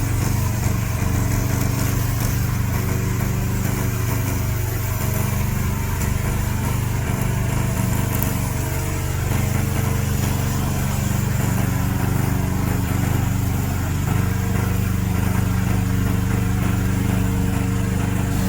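Remote-controlled lawn mower's engine running at a steady speed.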